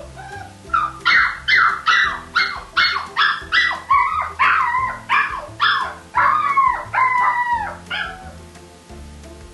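A dog barking in a rapid series, about two to three barks a second, each bark dropping in pitch, stopping about eight seconds in. Background music plays underneath.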